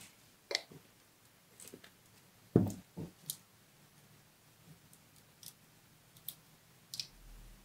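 Clicks and taps of a plastic glitter-glue bottle, a pine cone and a stick applicator being handled on a wooden table, with one louder knock about two and a half seconds in.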